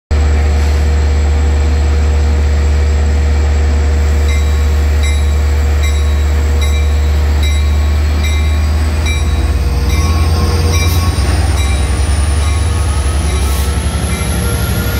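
Diesel locomotive, an LIRR EMD DE30AC with its 12-cylinder EMD 710 engine, running with a steady deep rumble as it pulls its train out of the platform. From about nine seconds in, a high whine rises steadily in pitch as the train gathers speed.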